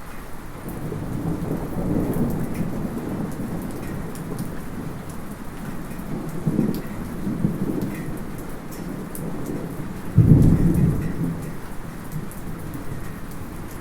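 Light rain falling steadily, with small metallic drips ticking through it. Thunder rumbles that are not too close swell about two seconds in and again around six to eight seconds. A louder thunderclap comes about ten seconds in and rolls away.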